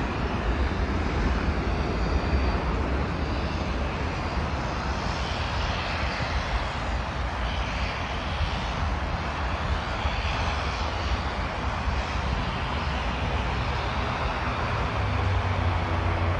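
A departing airliner's engines: a steady rushing noise with a low rumble underneath, holding at an even level throughout.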